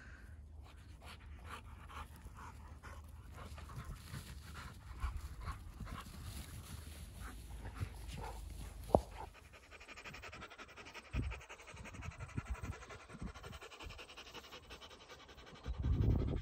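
Dogs panting close by. A single sharp click about nine seconds in, and a few dull low bumps later on.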